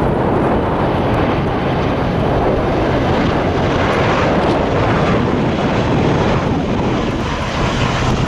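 Jet airliner noise, a steady loud rumble, mixed with wind buffeting the microphone.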